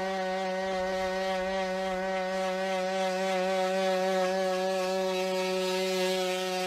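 Boston Dynamics WildCat quadruped robot's onboard engine running with a steady, even-pitched buzz as the robot gallops.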